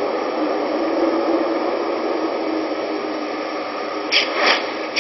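Steady hissing noise with a faint low drone, then two sharp hits about four seconds in, with another at the very end.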